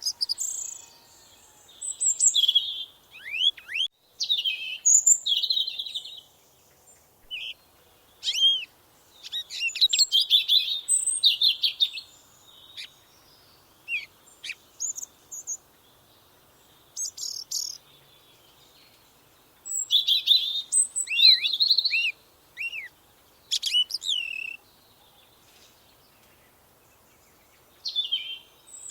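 Songbird singing: short phrases of quick high chirps and slurred whistles, each a second or two long, repeated with pauses between them.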